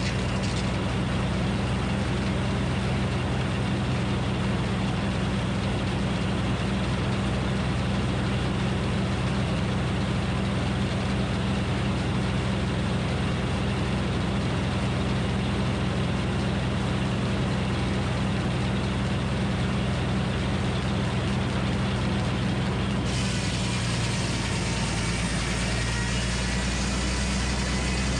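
Minneapolis Moline HEB 605 cubic-inch engine powering a Frick circular sawmill, running steadily. Its low hum shifts lower near the end.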